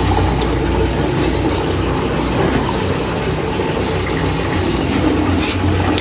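Water running steadily from a wall tap into a steel tumbler, with a steady low hum underneath.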